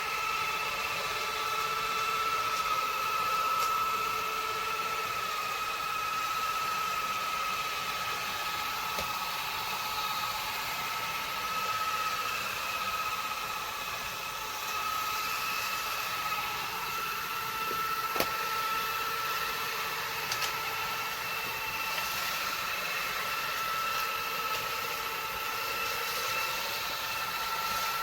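EMSON Voom cordless stick vacuum running steadily: a constant motor whine over the hiss of airflow, with a few faint clicks.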